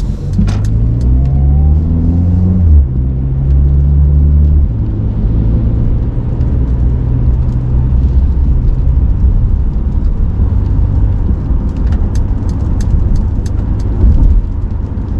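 A 2020 Mercedes-Benz CLA's engine rises in pitch as the car accelerates for about two and a half seconds, then drops with an upshift and eases off about two seconds later. After that it settles into a steady cruising hum with tyre and road rumble, heard from inside the cabin.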